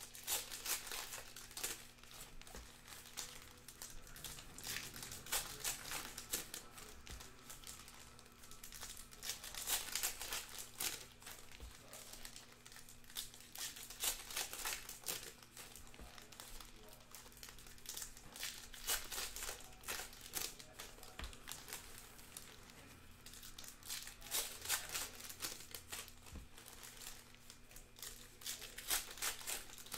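Foil wrappers of trading-card packs crinkling and rustling as the packs are handled and stacked, in irregular crackly bursts, over a faint steady low electrical hum.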